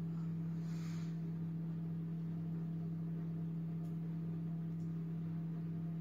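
A steady low hum with a few overtones, unchanging throughout, with a faint short hiss about a second in.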